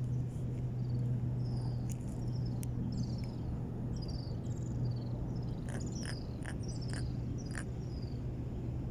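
A small grunter fish grunting out of the water: a steady low buzzing hum, with short high descending chirps above it and a few faint clicks in the second half.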